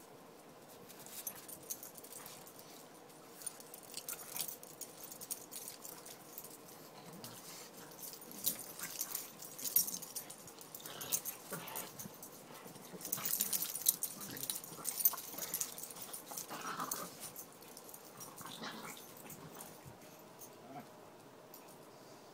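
Pekingese dogs and a pug play-fighting: scuffling with many short clicks and rustles, busiest in the middle, and a brief dog whine.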